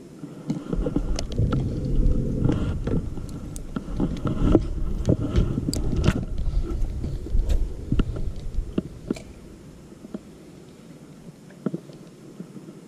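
Low rumbling from a small boat on the water, scattered with knocks and clicks; the rumble drops away about ten seconds in, leaving a quieter stretch with a few clicks.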